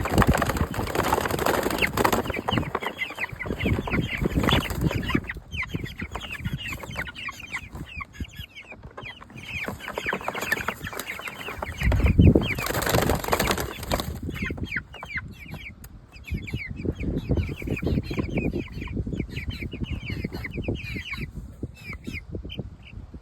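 Young meat chickens peeping continually in quick high notes, with flurries of wing flapping and scuffling. The loudest flurry comes about twelve seconds in.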